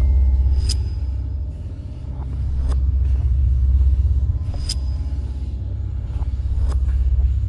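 Heavy low rumble on the camera's microphone, swelling and easing, with a sharp high tick about every two seconds.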